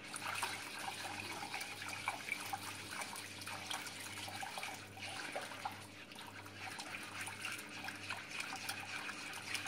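Whisk beating thin tomato soup in an enamel pot: steady liquid sloshing and swishing, with small clicks of the whisk against the pot.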